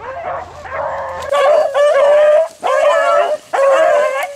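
A pack of rabbit-hunting dogs baying in full cry as they run a freshly jumped rabbit. Several voices overlap, grow louder about a second in, and pause briefly twice.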